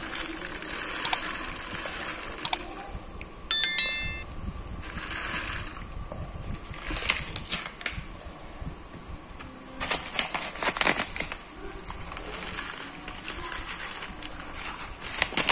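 Foil seed packet crinkling and water spinach seeds being poured into a plastic cup of water, with the hand swirling the water. Early on come two clicks and then a short bell-like chime of quick stepped tones, the loudest sound, from a like/subscribe/bell button animation.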